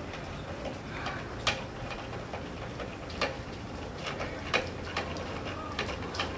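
A hand-cranked car jack being lowered, with a sharp metallic click about every second and a half as it is turned.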